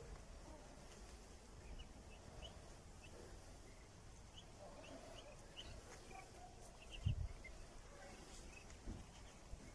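Faint, scattered short high peeps from a resting flock of young Muscovy ducks, with a single low thump about seven seconds in.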